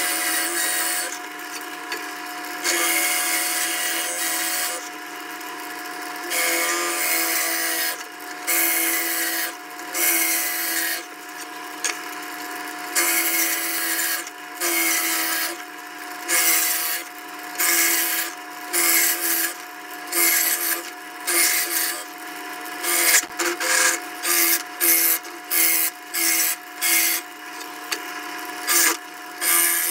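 Drill press running steadily as a Forstner bit bores into a walnut slab, in repeated bursts of cutting noise, one for each plunge of the bit. The bursts come shorter and quicker later on, about one a second near the end.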